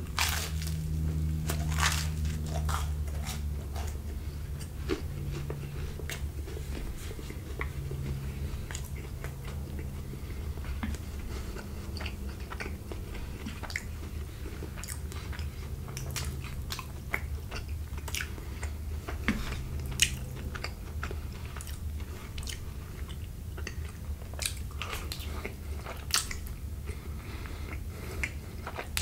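Close-miked chewing and biting: mouthfuls of crusty garlic cheese bread and creamy fettuccine Alfredo, with irregular crunches and wet mouth clicks over a low steady hum.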